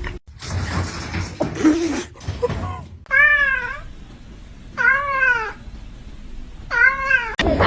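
Domestic cat meowing three times, about a second and a half apart. Each meow rises and then falls in pitch.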